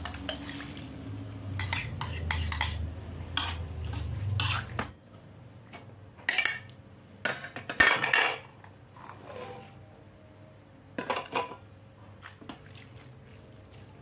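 Metal spoon and spatula clinking and scraping against a bowl and a cooking pan as tauco paste is spooned in and the dish is stirred: a run of irregular sharp clinks, over a low hum during the first five seconds.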